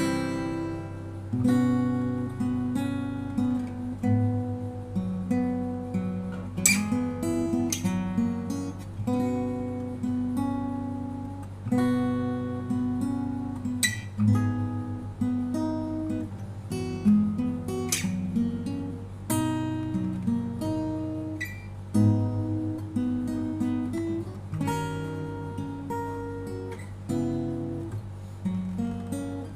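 Martinlee 41-inch acoustic guitar played as a sound demo: picked melody and bass notes ringing over each other, with a sharp strummed chord every few seconds.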